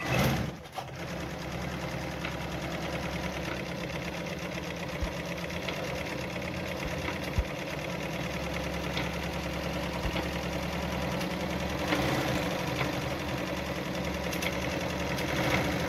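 Brother Pacesetter ZZ2-B702F electric sewing machine running steadily under its motor, spinning the bobbin winder to wind thread onto a bobbin.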